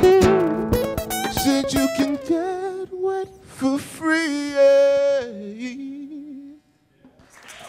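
Two acoustic guitars strum the closing chords of a song while a male voice sings the last lines, ending on a long wavering held note. The music dies away about six and a half seconds in, and after a moment's silence applause begins just before the end.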